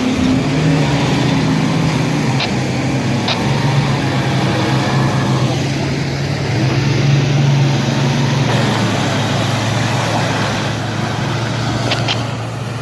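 Mitsubishi L200 pickup's engine running steadily under load as it crawls off-road, a low drone whose pitch shifts only slightly, with a few sharp knocks along the way.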